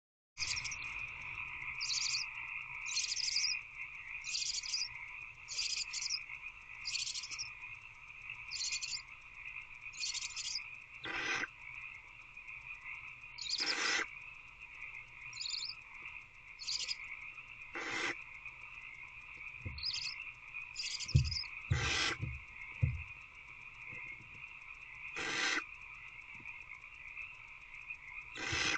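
Barn owl nestlings giving repeated rasping hiss (snore) calls, about one every second or so and then more spaced out, over a steady chorus of frogs calling outside the box. A few low thumps of movement come about two-thirds of the way through.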